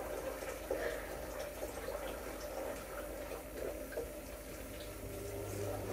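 Clear-glue slime being mixed in a bowl: soft wet, sticky liquid sounds with scattered small clicks, over a faint steady low hum.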